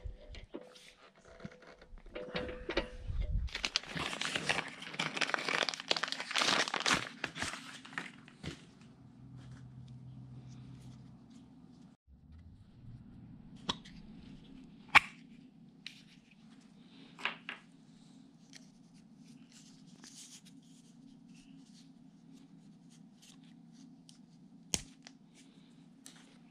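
Hand work on hydraulic hoses and fittings: a few seconds in, a loud crinkling, crackling rustle lasting about four seconds, then a steady low hum with a few sharp metallic clicks scattered through the rest.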